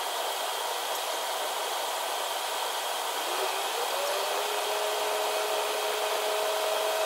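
Steady rushing airflow noise on the flight deck of a Boeing 737-800 in flight. About three seconds in, a two-note hum rises in pitch and then holds steady.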